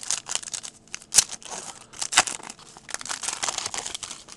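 Trading-card pack wrapper crinkling and tearing open by hand, with a run of sharp crackles.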